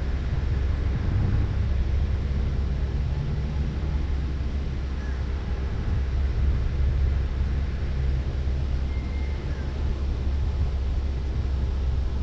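2004 Ford Focus engine running steadily, a low hum that holds the same pitch throughout.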